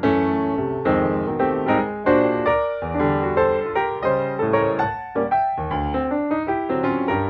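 Background piano music, a melody of struck notes that ring and fade.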